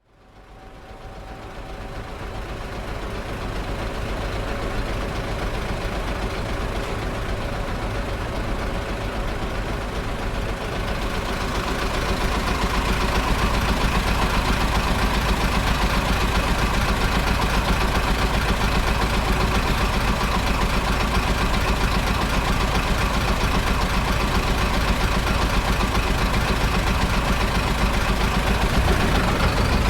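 Bus engine running steadily at a bus stop, with avenue traffic behind; the sound fades in at the start and grows louder about eleven seconds in.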